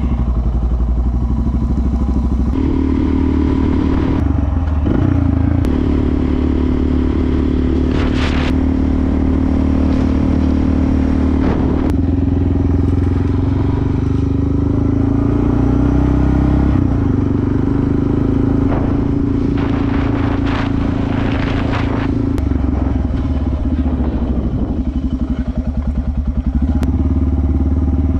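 Motorcycle engine running as the bike pulls away and rides along the road, its note shifting several times with throttle and gear changes. A few brief bursts of noise come through in the middle.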